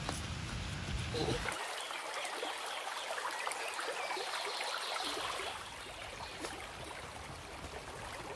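Small rocky stream trickling and flowing over stones, a steady watery hiss.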